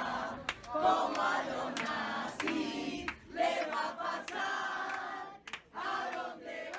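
A crowd chanting together in short phrases, with sharp hits sounding here and there among the voices.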